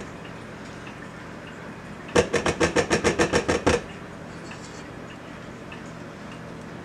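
A spatula knocking against a stainless steel stand-mixer bowl and dough hook: a quick run of about a dozen sharp knocks, about seven a second, starting about two seconds in and lasting about a second and a half.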